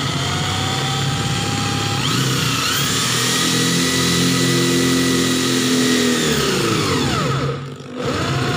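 Electric hand drill driving a twist bit into a square steel tube. The motor speeds up with a rising whine about two seconds in and runs steadily. It winds down with a falling pitch about seven seconds in, then starts again near the end.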